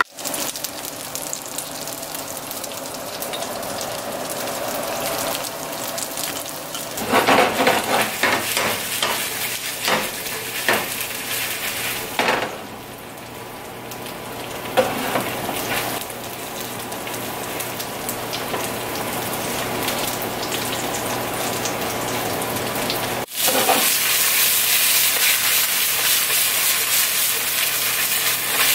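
Breaded chicken pieces sizzling in a nonstick frying pan, with a wooden spoon scraping and knocking in the pan as they are stirred, most busily from about 7 to 11 seconds in. The sizzle grows louder near the end.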